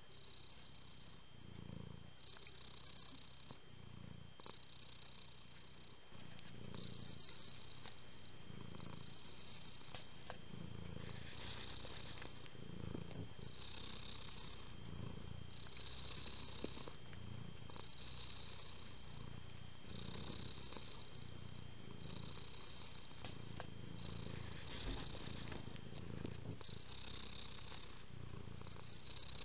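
Domestic cat purring, a steady rhythmic purr that swells and fades about every second and a half with its breathing, louder after about six seconds.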